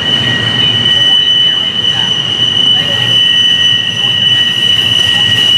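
Double-stack intermodal freight train's well cars rolling past on a sharp curve, the wheel flanges giving a steady high squeal on two pitches over the low rumble of the wheels on the rails.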